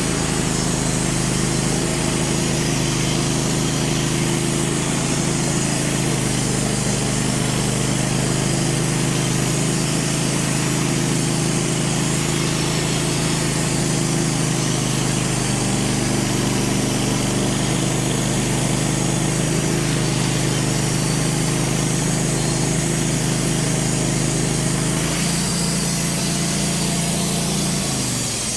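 Wood-Mizer LT15 band sawmill running steadily under load as it saws through a black cherry log. The engine's pitch shifts a couple of times and falls away near the end as the cut finishes.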